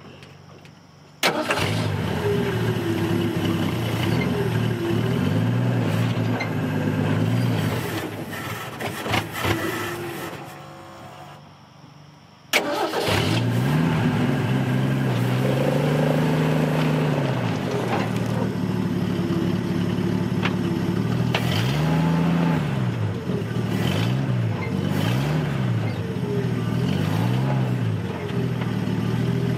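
1967 Ford F250's engine starts suddenly about a second in, runs and revs, then winds down and stalls near the middle. It is restarted at once and revved up and down over and over as it tries to drive the truck against a locked front wheel, through a clutch that is nearly worn out.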